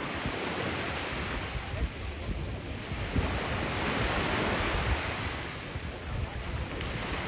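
Ocean surf breaking and washing on a beach, a steady rush that swells a little past the middle, with wind buffeting the microphone in low rumbling gusts.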